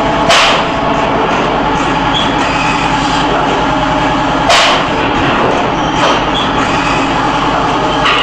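Semi-automatic PET stretch blow moulding machine working: a steady machine hum, broken twice, about half a second in and again some four seconds later, by a short sharp blast of compressed air as a blow cycle ends.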